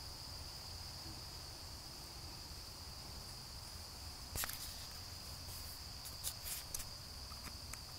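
A steady high-pitched chorus of crickets. A sharp click and rustle come about four seconds in, and a few more clicks near the end.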